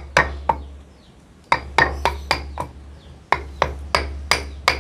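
A claw hammer knocks on the top of a wooden pestle, driving it down into a stone mortar to crush red chilies for sambal. The sharp knocks come about three to four a second, in three quick runs with short pauses between them.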